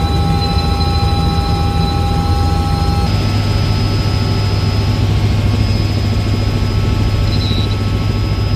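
Helicopter in flight heard from inside the cabin: a steady, loud engine and rotor drone with a fast rotor beat. The sound shifts slightly about three seconds in.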